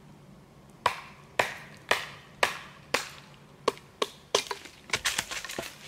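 Batoning dry hardwood with a large fixed-blade bushcraft chopper knife: a wooden baton knocks the blade down into the wood, with sharp knocks about two a second and a quicker, rougher run of knocks near the end.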